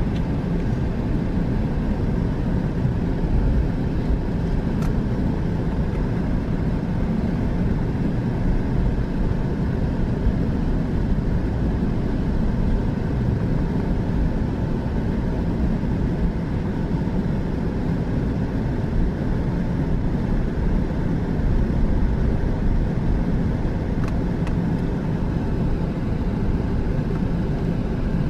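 Airbus A380 cabin noise heard from a window seat over the wing during taxi: a steady low rumble and hum from the Rolls-Royce Trent 900 engines at taxi power, with a couple of faint ticks.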